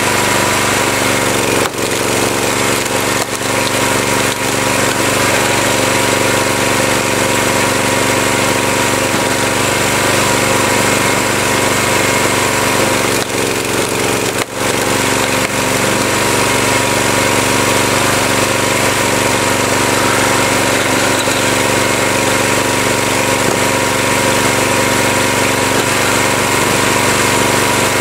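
Small gasoline engine of a wood splitter running steadily, with brief dips in level about two seconds and fourteen seconds in.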